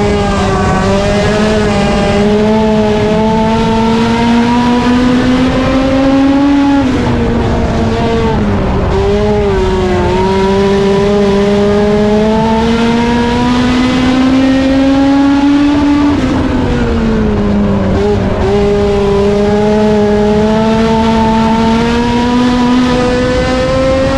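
Race car engine running laps under hard throttle. Its pitch climbs slowly through each straight and drops off sharply twice, about nine seconds apart, as it lifts for the turns of a short oval.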